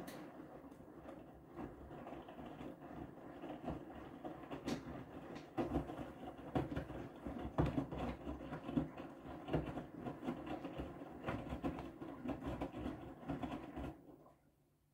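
Whirlpool FreshCare+ front-loading washing machine tumbling its wash load: the drum turns with a low rumble while the wet laundry and water slosh and thud irregularly. The drum stops near the end, as in the pause between wash rotations, leaving a faint hum.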